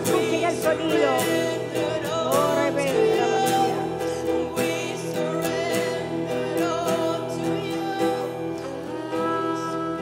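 Slow worship music: a sustained instrumental backing with an acoustic guitar, and a voice singing over it in the first few seconds.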